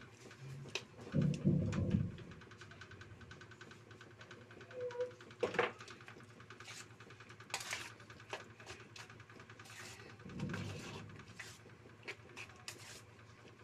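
A hand mixing and kneading a sticky mashed taro mixture in a stainless steel bowl: soft squelching and scraping with small clicks against the metal, and two dull thumps, about a second in and again about three seconds before the end.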